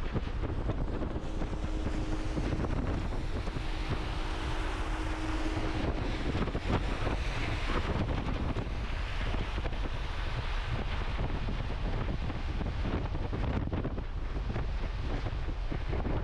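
A car driving on a wet, slushy highway: a steady rush of tyres on the wet road and wind noise.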